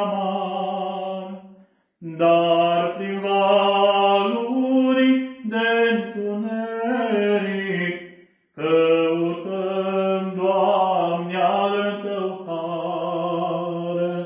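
A priest singing an Orthodox devotional song solo and unaccompanied, in long held notes. The singing comes in three phrases, with short breaks about two seconds in and about eight seconds in.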